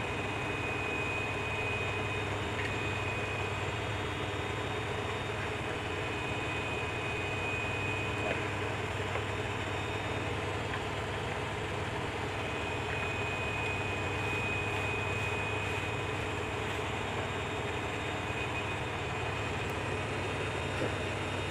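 Steady mechanical hum and whir of a running motor-driven appliance, with a thin high whine that drops out for about four seconds near the middle.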